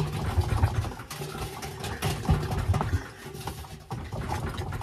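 Hotpoint washing machine drum turned by hand, its bearings giving a low, uneven growl with a few sharp knocks. The drum has no play and the owner says the slight growl has not worsened since he got the machine.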